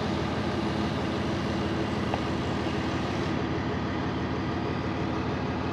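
An engine idling steadily in the background: an even drone with a fast, regular pulse.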